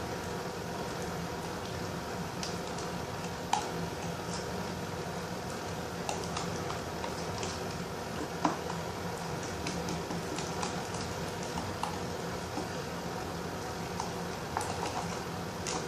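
Thickening glue-and-detergent slime being stirred in a cup, giving scattered wet squelches and clicks, the loudest about three and a half and eight and a half seconds in, over a steady background hum.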